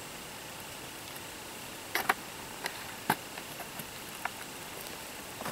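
Light clicks and taps from cooking-oil bottles being handled at a wooden table, over a steady hiss. The two sharpest clicks come about two seconds in, and a few more follow.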